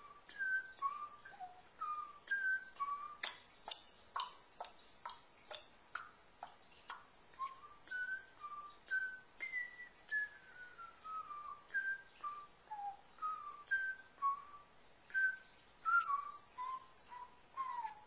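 A person whistling an idle tune of short notes, one every half second to second, including a falling run of notes about halfway through. A run of sharp clicks sounds a few seconds in.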